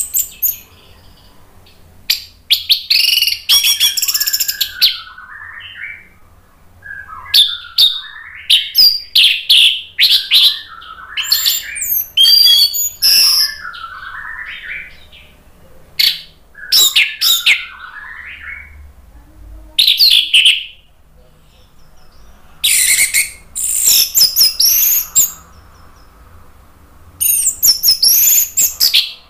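Orange-headed thrush (anis merah) singing a loud, varied song of quick whistled and warbled notes, delivered in phrases of one to a few seconds with short pauses between.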